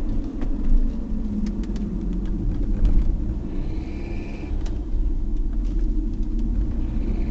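Car driving, heard from inside the cabin: a steady low road rumble with scattered light ticks and rattles, and a brief high squeak about four seconds in and again at the very end. The ticks and squeaks are the abnormal noise the owner hears throughout the drive.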